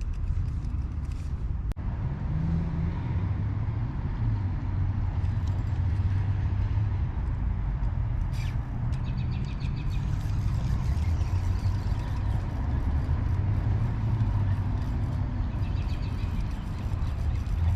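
Steady low rumble of road traffic, with a faint fine ticking from about ten seconds in.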